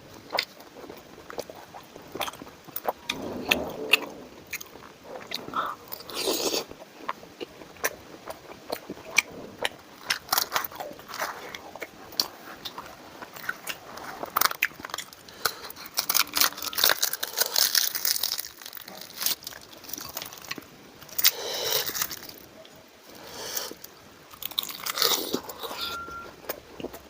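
A person eating close to the microphone: bites and chewing of curry, luchi, green chilli and cucumber, with many short, sharp clicks and crunches throughout.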